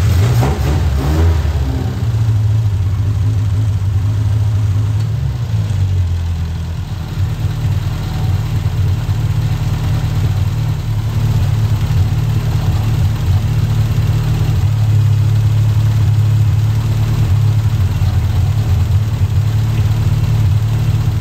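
Classic Mini's four-cylinder A-series engine idling steadily, running on freshly fitted Pertronix electronic ignition while its timing is checked.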